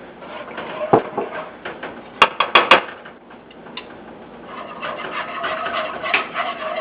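Wire whisk scraping and stirring milk into a butter-and-flour roux in a pan, with a knock about a second in and a quick run of sharp clinks against the pan a little after two seconds, then steady scraping.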